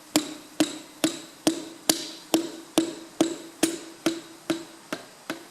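A Perkins piston being tapped down through a steel ring compressor into the cylinder bore: thirteen even taps, a bit over two a second, each with a short metallic ring.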